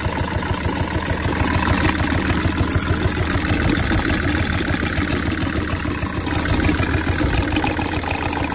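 Peugeot/Citroën 1.6 HDi four-cylinder turbodiesel engine idling steadily with a knocking clatter, the engine knock that the repair is meant to cure.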